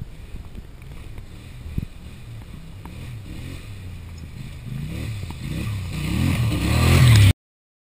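Quad bike (ATV) engine approaching and growing steadily louder, its pitch rising and falling again and again as the rider works the throttle, until it cuts off abruptly near the end. A sharp knock about two seconds in.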